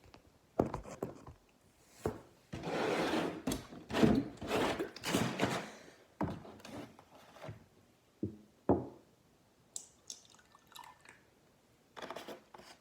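Liquid poured into a whiskey glass in several short pours, with sharp knocks of bottles and the glass set down on a hard surface between them.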